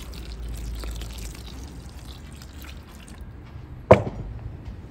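Water pouring from a jug into a bowl of flour and beaten eggs for about three seconds, then a single sharp knock about four seconds in.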